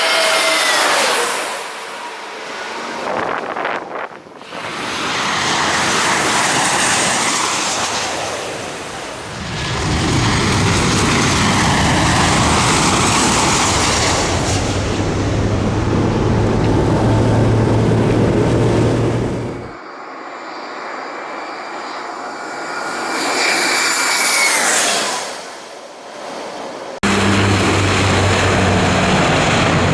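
Jet airliners passing low overhead in a series of cut-together clips: loud engine noise with a whine that falls in pitch as each aircraft goes by, broken by several sudden cuts.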